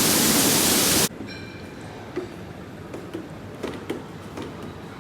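A loud, steady rushing hiss that cuts off suddenly about a second in, leaving a quiet background with a few faint clicks.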